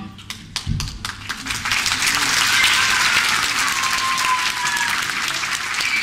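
Audience applauding. Scattered claps at first quickly build into full, steady applause, with a long sliding, whistle-like tone falling in pitch through the middle.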